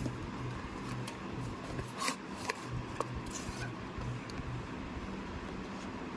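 Hands handling a smartwatch box and its packaging: scattered light clicks and rubbing scrapes over a steady low background hum.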